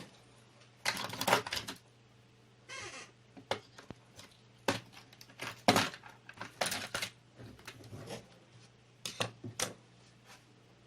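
Irregular clicks and knocks, with a short scrape about three seconds in, from parts of an Asus VH192D monitor being handled during disassembly.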